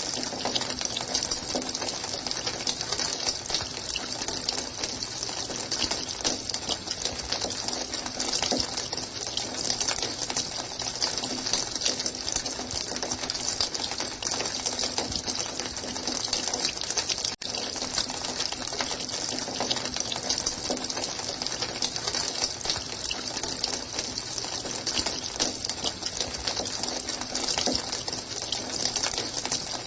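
Running water flowing steadily, an even rushing noise with a faint low hum beneath it. The sound drops out for an instant a little past halfway.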